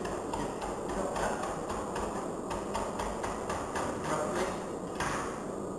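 Serrated knife chopping a leek into rounds on a plastic chopping board: a quick, even run of chops, several a second, that eases off near the end, over a steady low background noise.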